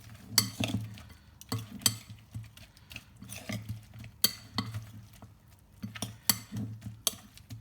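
A spoon knocking and scraping against a bowl in irregular clinks as chicken wings are tossed in a thick sauce.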